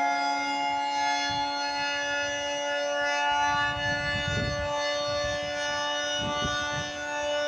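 Federal Signal 3T22 three-tone outdoor warning siren sounding a steady, unwavering chord, as in its Alert signal. A couple of low rumbles come through about halfway and again near the end.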